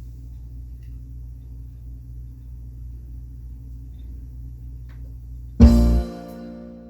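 A steady low hum, then about five and a half seconds in a loud chord struck on an amplified instrument, ringing and fading away.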